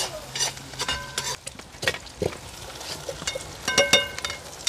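A spoon stirring and scraping saltfish cooking in a pot, with a sizzle underneath; several strokes knock against the pot and ring briefly, a quick cluster of them about four seconds in.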